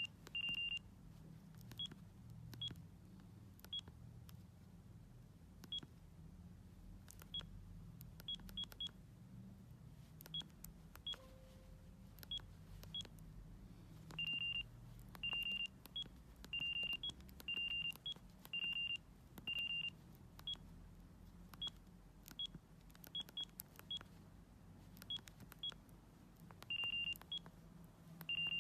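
Bird S1150 mobile phone beeping in one high, unchanging pitch: scattered short blips, with runs of longer beeps about a second apart in the middle and again near the end.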